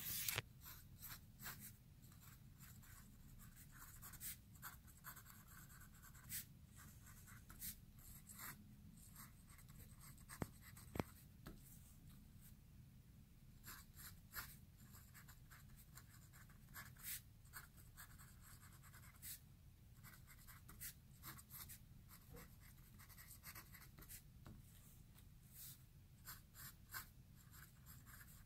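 A fountain pen's nib scratching across notebook paper as it writes, in faint short strokes that come in quick runs, with a longer pause a little before halfway.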